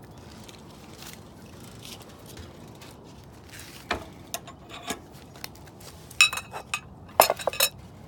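Spoon clinking and scraping against a bowl as fruit-and-vegetable mixture is dished out: a few scattered clicks in the middle, then two clusters of sharp ringing clinks, the loudest near the end.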